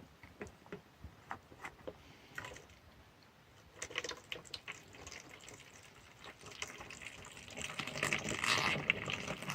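Spring water splashing and trickling into the soft flask of a Katadyn BeFree filter bottle as it is dipped and filled. Scattered small splashes and clicks give way to a steadier filling sound that grows louder over the last couple of seconds.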